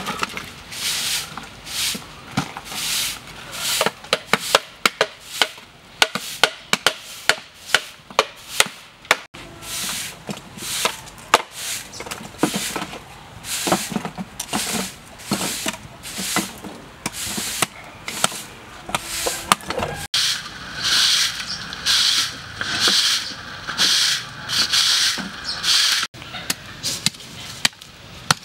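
Straw broom sweeping a dirt floor in repeated swishes, mixed with sharp knocks of a cleaver chopping and breaking lumps of charcoal. The swishing is loudest for several seconds in the second half.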